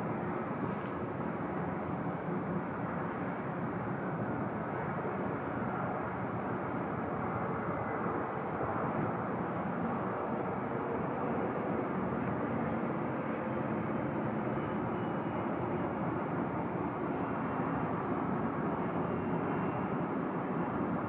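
Steady rushing noise on the deck of a ferry under way, with a faint low hum running through it.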